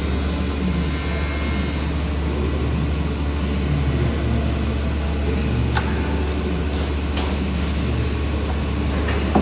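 A machine running with a steady low hum, with a few faint ticks over it.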